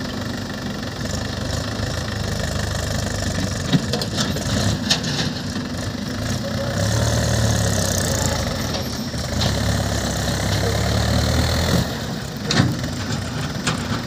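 Diesel engines of a JCB 3DX backhoe loader and a Mahindra tractor running steadily, the engine note rising and holding louder for several seconds in the middle as the backhoe works under hydraulic load. A few sharp knocks come about four and five seconds in and again near the end.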